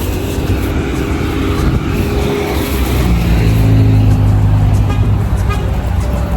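Car running, heard from inside: a steady low engine and road hum whose tone shifts about halfway through.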